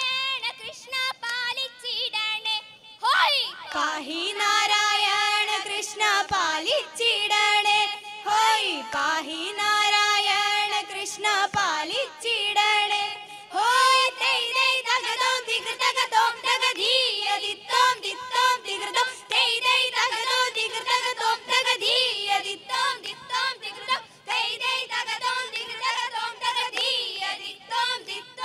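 A group of women singing a Malayalam vanchippattu (Kerala boat song) in unison, in long held phrases with short breaks between them, with hand claps keeping time.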